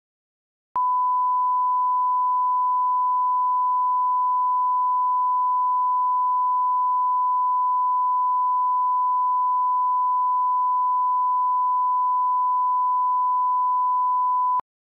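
Broadcast 1 kHz line-up test tone that accompanies colour bars: a single steady, unwavering pure tone that switches on about a second in and cuts off abruptly just before the end, with a faint click at each edge.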